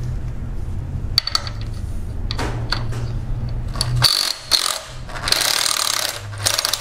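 Cordless ratchet driving out the reverse-threaded 16 mm bolt of an engine's belt idler pulley: clicks and short whirring runs from about halfway through. A steady low hum fills the first few seconds and stops suddenly.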